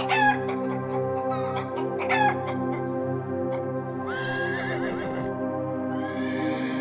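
Steady background music with chickens calling over it: two short squawking clucks, one near the start and one about two seconds in. About four seconds in comes a horse's whinny lasting about a second, and near the end a short breathy sound.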